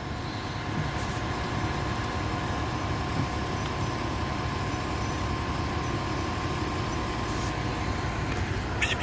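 Heavy truck engine running steadily at idle, with a faint steady whine above it, typical of the flatbed tow truck standing with its engine on.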